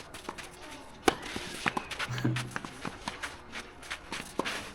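A tennis point in play: a series of sharp knocks of the ball being struck and bouncing on the court, over faint background music.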